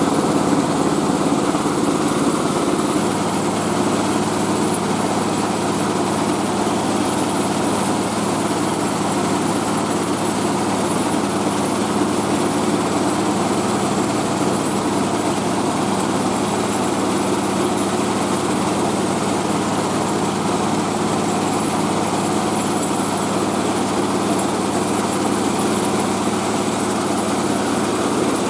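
Mobile rice-milling machine running steadily, its engine and huller making a continuous mechanical drone, with a slight change in its low tone about three seconds in.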